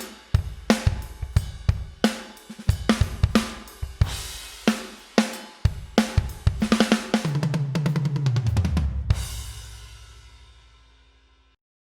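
Sampled acoustic drum kit from a Pearl Mimic Pro electronic drum module, played on electronic pads: a groove of kick, snare and cymbals, then about seven seconds in a fill that steps down the toms. It ends on a crash cymbal hit that rings and fades out.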